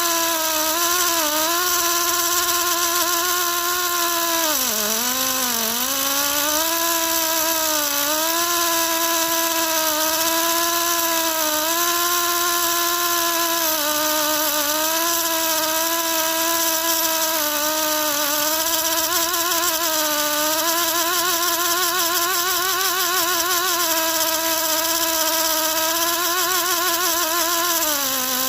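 Air-powered cut-off tool whining at high speed while cutting through the accelerator rod, with a steady hiss. Its pitch sags briefly as it bogs under load about five seconds in and again near the end.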